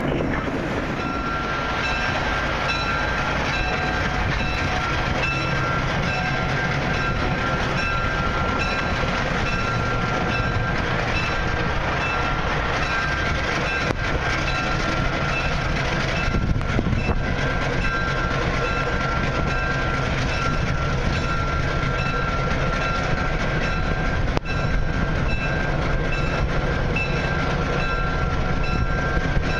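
Ex-Lehigh Valley ALCO RS-3m diesel locomotive running, a steady engine rumble under a steady high whine.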